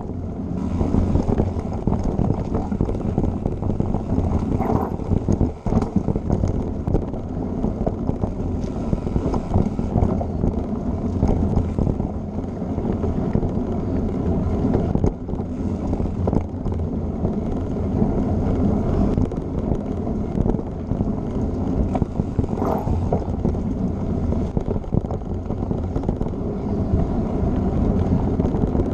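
Mountain bike rolling fast along a dirt singletrack: a steady rumble and rattle from the tyres and frame over the trail, with wind buffeting the ride camera's microphone.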